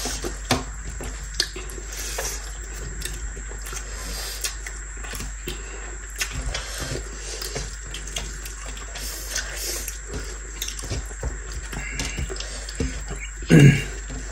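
Close-up eating sounds: fingers squishing and mixing rice with kinema (fermented soybean) curry on plates, with small wet clicks and chewing. There is a short louder sound near the end.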